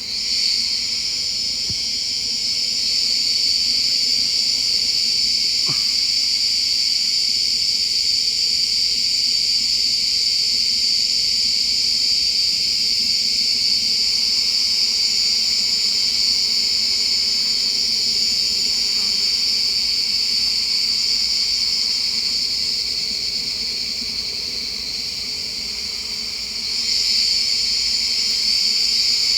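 Steady, high-pitched drone of forest insects chirring without a break. It dips slightly near the end and swells again just before the close.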